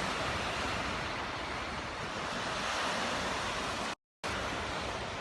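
Baltic Sea surf washing on the beach, a steady rushing of waves. The sound cuts out completely for an instant about four seconds in.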